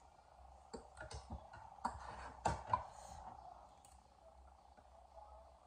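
Metal forks clicking against ceramic plates while eating: a few scattered light clicks, the loudest two close together about two and a half seconds in, over a faint steady hum.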